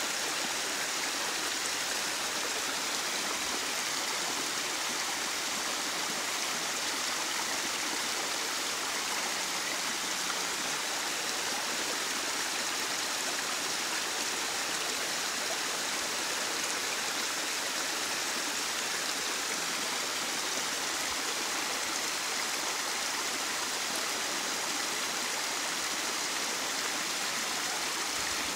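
A narrow waterfall pouring down a mossy gully and splashing into a small rocky stream below: a steady, unbroken rush of water, bright and high in pitch.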